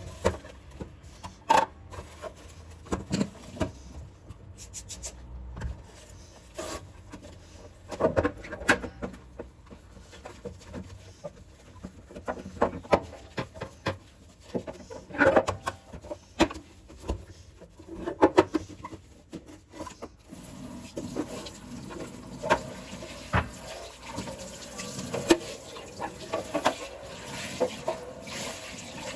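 Kitchen items and containers knocked, handled and set down in a string of sharp clicks and clatters. About two-thirds of the way in, water starts running and continues under the clatter.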